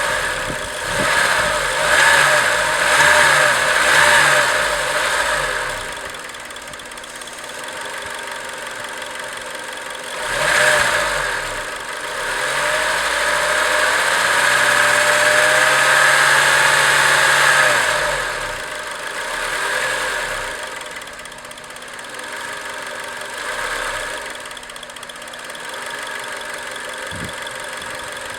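Acura RSX Type S 2.0-litre four-cylinder engine running, revved up and let fall back to idle several times, with one longer rev held for about five seconds near the middle.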